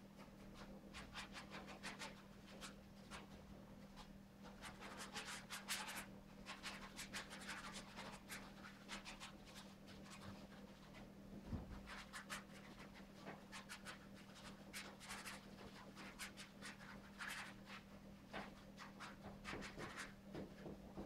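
Paintbrush dabbing and scraping on a stretched canvas: faint, irregular scratchy strokes coming in quick flurries, over a steady low hum.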